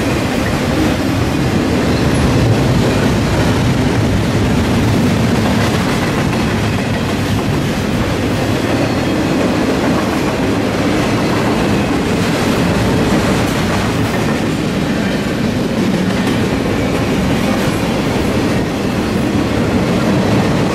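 Double-stack intermodal container well cars rolling past, their steel wheels on the rails making a steady, loud noise.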